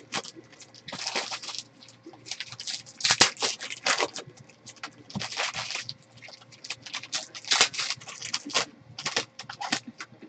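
Foil wrapper of a trading card pack being torn open and crinkled by hand, in irregular bursts of crackling and rustling.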